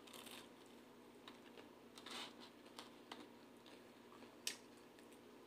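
Near silence with a few faint clicks and rustles of eating and handling pizza, the loudest a brief rustle about four and a half seconds in.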